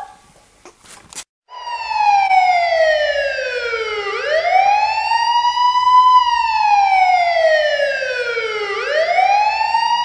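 A wailing siren that starts about a second and a half in and slowly sweeps down in pitch and back up again, twice, in the manner of a police siren.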